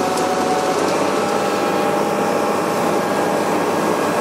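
Boat engine running steadily under way, with the rush of the wake and wind.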